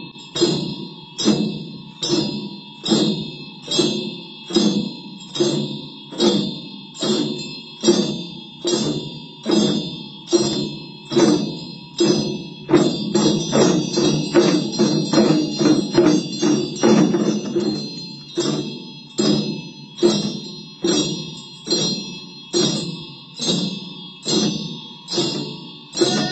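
Large double-sided chöd damaru drums twirled together in a steady beat of about one and a half strokes a second, speeding into a fast roll about halfway through and then settling back to the beat. Small hand bells ring steadily over the drums.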